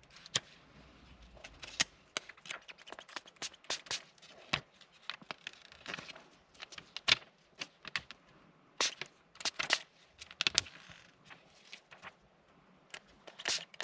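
Irregular crackling and rustling of a thin plastic screen-protector film being peeled from its backing sheet and handled in gloved hands, with bunches of sharp crackles.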